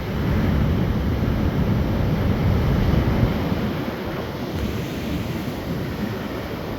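Ocean surf with big waves breaking and washing, a steady rushing roar that eases a little after about four seconds, with wind buffeting the microphone.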